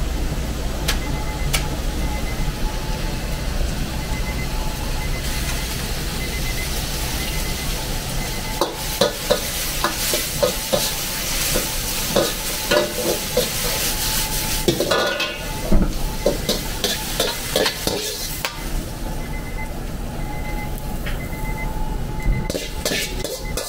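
Cabbage and bean sprouts stir-frying in a wok: loud sizzling, with a metal ladle knocking and scraping against the wok many times, over a steady low kitchen hum. The sizzling starts about five seconds in and dies down a few seconds before the end, where a few clinks follow.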